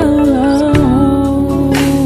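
Background music: a melody line that bends in pitch over held chords, with a low bass entering about three-quarters of a second in.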